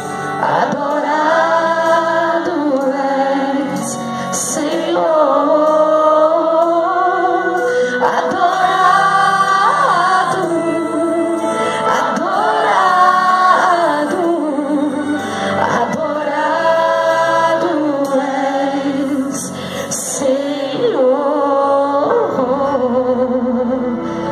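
A woman singing a worship song into a handheld microphone, in long held phrases, over instrumental accompaniment.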